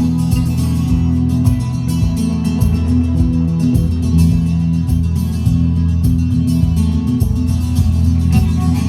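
Music with guitars over a steady beat and heavy bass.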